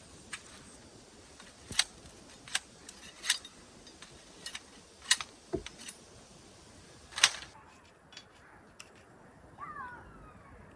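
Sharp snips of harvesting shears cutting fruit stems, about ten clicks at irregular intervals. Near the end there is a short chirping glide.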